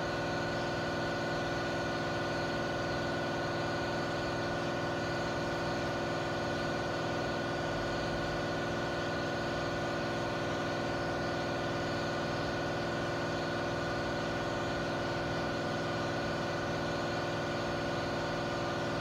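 Random-orbital sander with a 3000-grit Trizact disc running steadily, wet-sanding oxidized single-stage lacquer off a car's paint.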